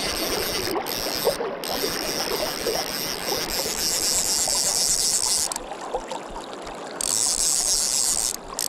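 River current rushing around a wading angler's legs, a steady hiss that drops away briefly about halfway through and again near the end.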